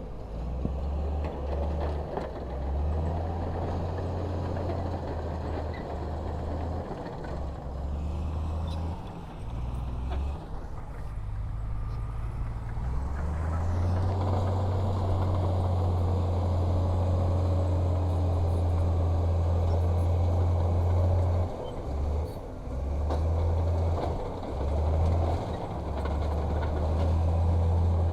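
Heavy earthmoving machine's diesel engine working under varying load: a low drone that rises and falls, held strongest and steadiest for several seconds in the middle, then surging on and off.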